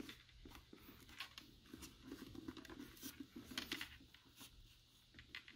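Faint rustling and small clicks of a helmet's fabric liner and plastic headset speaker being handled and pressed into place.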